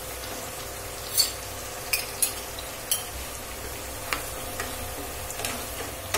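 Onions, tomatoes and ginger-garlic paste sizzling in mustard oil in a nonstick kadai as a wooden spatula stirs them. Several sharp taps of utensils against the pan come through over the steady frying hiss, most of them in the first four seconds.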